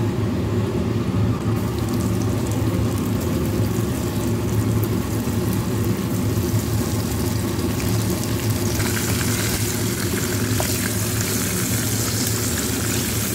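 Cornflour-coated prawns deep-frying in hot oil in a wok: a steady sizzle of bubbling oil that turns brighter and more hissing about nine seconds in.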